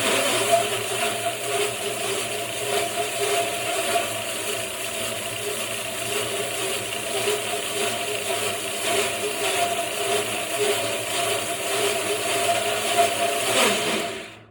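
Homemade bandsaw mill running steadily, its motor and blade making a constant mechanical noise with a rattle, then cutting off abruptly near the end.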